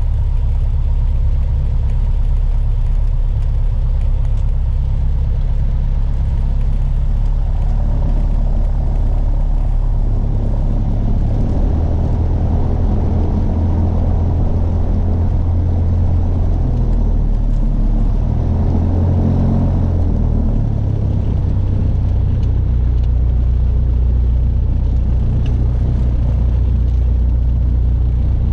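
Piper PA-28's piston engine and propeller running at low taxiing power, a steady low drone whose pitch shifts up and down a few times midway through as the throttle is moved.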